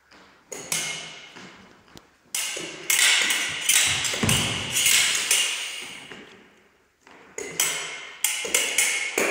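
Fencing foils clashing: repeated sharp metallic clinks of blade on blade, each ringing and echoing away, coming in quick flurries with short lulls between. A heavy thump of a lunging foot on a wooden floor comes about four seconds in.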